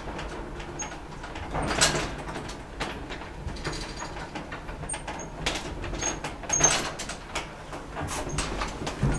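Old Hansen & Bjørnerød traction elevator car travelling in its shaft: a low steady hum under repeated clicks and rattles, with louder knocks about two seconds in and again past the six-second mark.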